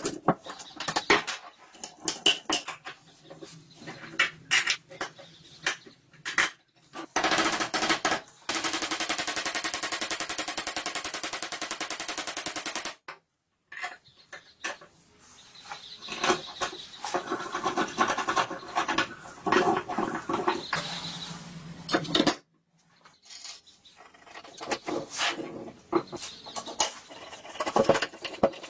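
Small metal rifle parts clicking, scraping and knocking as they are fitted by hand with pliers and a screwdriver. About a quarter of the way in, a dense rapid rattle with a steady high whine runs for about six seconds. Later a rougher stretch with a low hum lasts several seconds.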